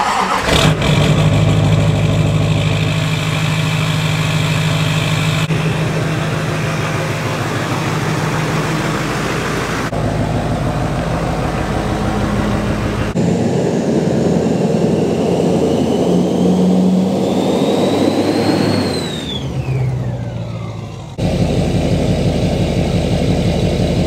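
Duramax turbodiesel V8 engine in several spliced clips that change abruptly from one to the next: it starts up just after the beginning and runs steadily. Later it revs, with a high turbo whistle that climbs slowly and then drops away steeply as the turbo spools down.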